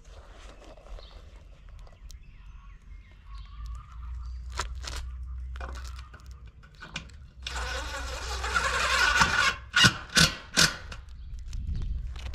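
Cordless driver spinning a roofing screw into a ribbed metal roof panel for about two seconds, with a few sharp clicks and knocks before and after. A low rumble runs underneath.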